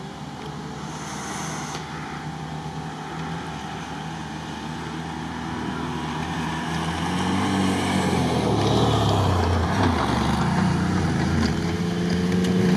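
An off-road quad bike's engine passing close, revving up and down, then a Suzuki Grand Vitara's engine coming up behind it, rising in pitch. The engines grow louder toward the end.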